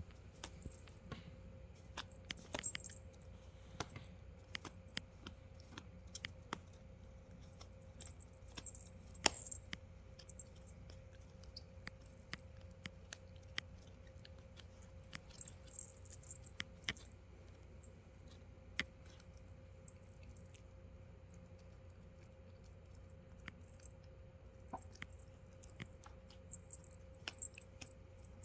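A dachshund puppy gnawing and tugging at a fabric-strapped flip-flop: small, irregular clicks and scratches from its teeth on the strap and sole, over a faint steady hum.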